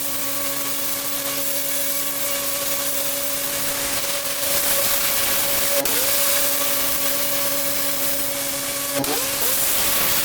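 Pressure washer running steadily: the motor's hum under the loud hiss of the water jet striking the patio slabs. About six and nine seconds in, the motor's note dips briefly and recovers.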